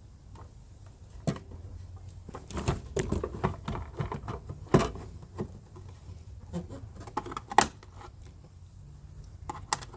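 Hard plastic clicks and knocks as a Jeep Grand Cherokee tail-light housing and its push-in fasteners are handled and pressed into place, a run of small clicks in the middle and three sharper snaps, over a low steady hum.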